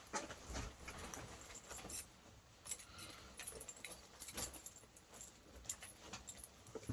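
Irregular light clicks, ticks and rustles: small objects being handled, with a faint metallic jingle.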